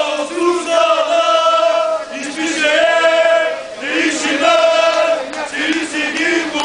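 A group of football supporters chanting in unison, many male voices singing a terrace chant in long, loud phrases with brief breaks between them.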